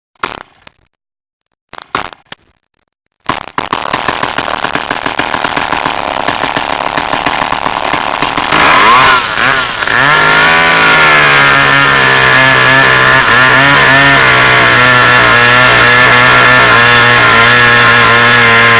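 Chainsaw pull-started. Two short pulls that don't catch, then it fires about three seconds in and runs rough. It revs up with a rise and fall in pitch around eight to ten seconds in, then holds a steady high-speed run.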